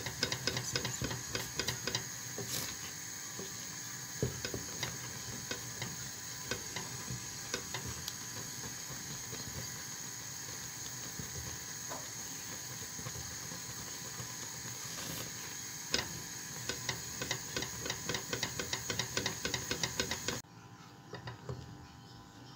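Wooden spoon stirring thick barley-flour porridge in a stainless steel pan, with many small clicks and scrapes of the spoon against the pan over a steady hiss. The hiss cuts off suddenly near the end, leaving a few quieter clicks.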